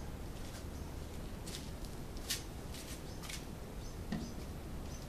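Faint scattered clicks and small squeaks of a black ABS plastic pipe being handled at a work table, over a steady low background hum.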